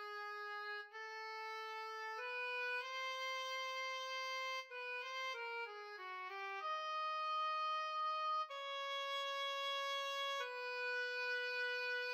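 Synthesized MIDI oboe playing an atonal solo line: mostly long held notes, with a quick run of shorter notes around the middle.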